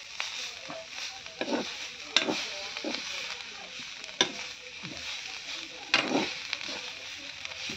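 Leafy greens sizzling in a hot kadai while a metal spoon stirs them, scraping and knocking against the pan every second or so. The loudest knocks come about two, four and six seconds in.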